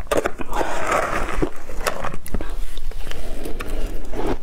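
Metal spoon scraping and clinking through frozen matcha ice in a glass bowl, a dense run of sharp clicks with a rougher scraping patch about a second in.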